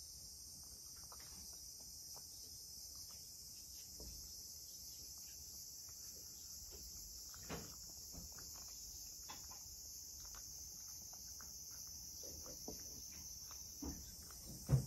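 A cat chewing pieces of carrot from a bowl: soft, scattered crunching clicks, with a few louder knocks and the loudest one just before the end, over a steady high-pitched hiss.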